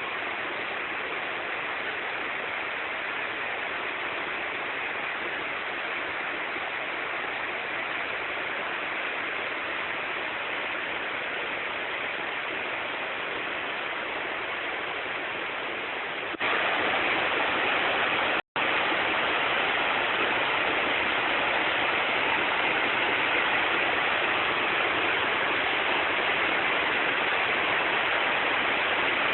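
Waterfall's water rushing in a steady roar. About two-thirds of the way through it jumps abruptly louder, then cuts out for an instant shortly after.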